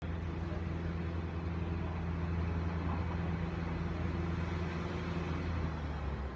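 Engine of a slow-moving train running with a steady low hum, which drops slightly near the end and then stops.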